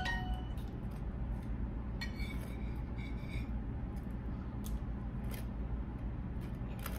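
Table knife spreading cream cheese on a bagel: soft scraping with a few light clicks of the knife, over a low steady hum.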